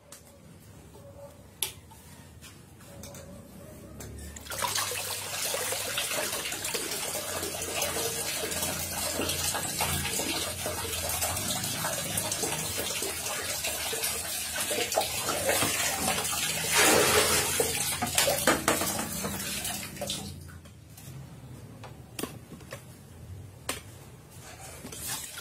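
A man urinating into a toilet bowl: a steady splashing stream starts about four seconds in, grows loudest a little before the end and stops about five seconds before the close. Before it there is quiet room tone with a single click.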